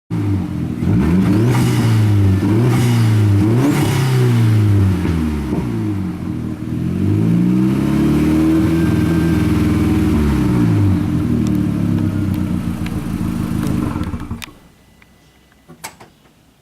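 Car engine revving over and over, its pitch climbing and falling with each rev. It stops about 14 seconds in, and a few faint clicks follow.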